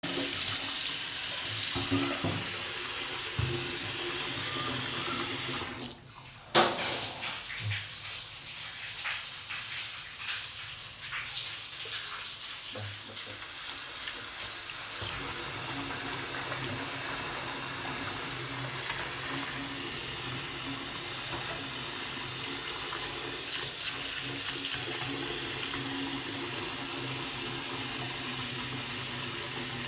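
Water running steadily from a tap into a stainless steel sink, splashing over a baby monkey being scrubbed by hand. About six seconds in the sound drops away briefly, and a sharp click follows.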